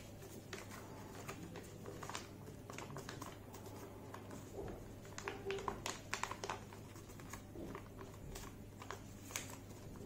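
Sheet of origami paper being folded and creased by hand: light crinkling rustles and small sharp clicks, scattered and busiest a little past the middle.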